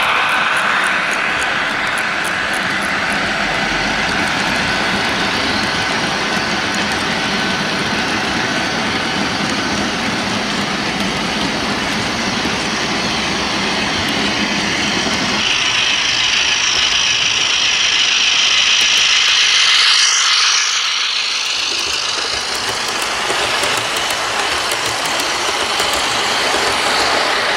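OO gauge model freight train of hopper wagons rolling along garden track, a steady rumbling clatter of small wheels on the rails. About halfway through the rumble drops away and a higher, hissing run of another model train takes over.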